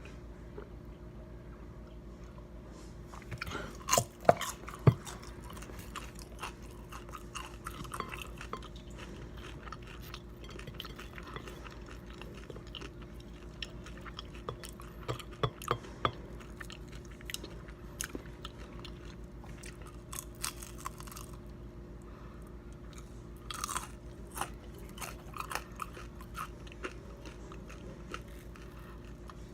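A person chewing and crunching fried pizza rolls close to the microphone: irregular crunches and mouth clicks, with a few louder sharp crunches, over a steady low hum.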